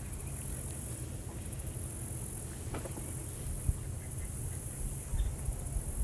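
A high-pitched insect chorus that swells and fades in waves, over a steady low rumble, with one sharp tick a little past halfway.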